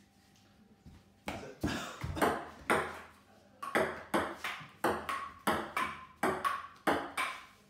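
Table tennis rally on a wooden dining table: the ball clacks sharply off the tabletop and the players' bats, about three hits a second, starting a little over a second in. Several of the later hits leave a brief ring.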